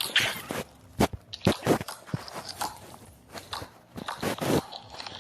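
Slime being squeezed and poked by hand, making irregular clusters of sticky clicks and crackles, with a quieter gap partway through.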